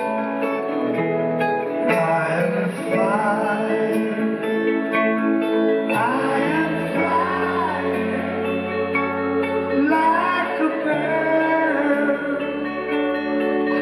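Live band music with singing: held chords over a bass line that moves to a new note every few seconds, with a voice singing the melody, most clearly from about six seconds in.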